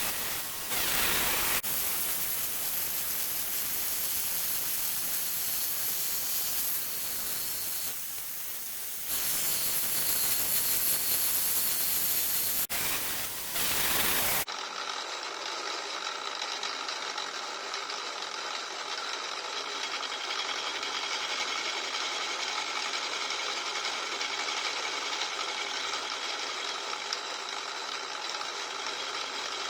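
Small milling machine running and cutting metal, heard in several short spliced clips. It starts as a hissing cutting noise, then about halfway in changes to a steadier machine hum carrying several steady tones.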